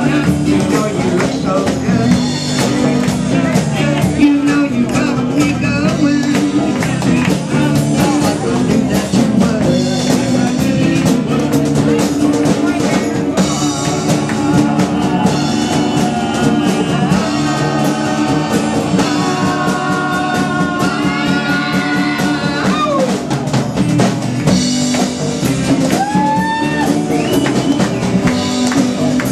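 A band playing an old song: drum kit and guitar, with singing, at a steady loud level. There are sliding, bending notes between about two-thirds and nine-tenths of the way through.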